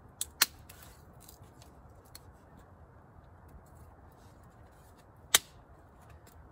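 Wood campfire crackling, with two sharp pops just after the start and a louder single pop about five seconds in.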